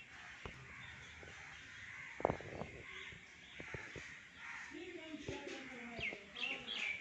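Crows cawing in the background, the calls clustering near the end, with a few sharp clicks, the loudest about two seconds in.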